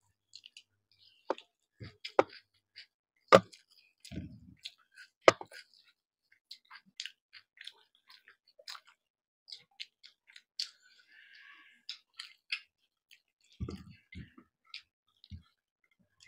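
Close-up eating sounds of chicken and rice eaten by hand: wet chewing with irregular mouth clicks and smacks, a few of them louder and sharper in the first several seconds.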